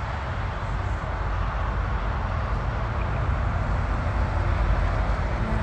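Steady noise of highway traffic: a continuous low rumble and hiss of passing vehicles, with no distinct events.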